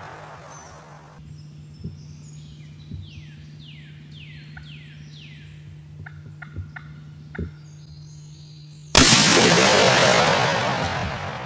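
Eastern wild turkey gobbler gobbling, a quick run of falling notes, with a few sharp clicks around it. About nine seconds in, a shotgun blast goes off and its echo rolls away over a couple of seconds.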